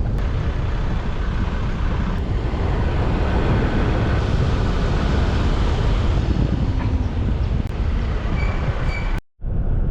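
A vehicle on the move: a loud, steady low rumble with no speech, and a brief high tone shortly before the end.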